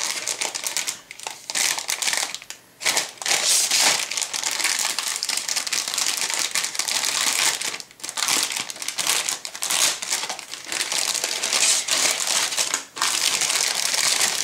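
Clear plastic kit bags crinkling and rustling as hands handle and turn over bagged plastic sprues, almost continuously with a few short breaks.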